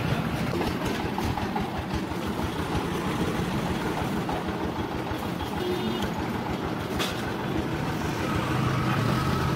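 Steady street traffic noise with a low engine rumble, and a sharp click about seven seconds in.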